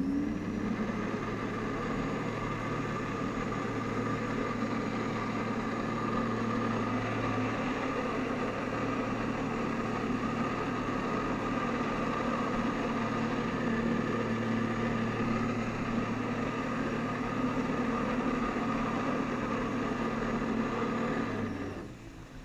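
Jet ski engine running at high, steady revs after a brief rise at the start, driving its jet pump to feed water up the hose to the Flyboard and hold the rider aloft; it drops back sharply near the end.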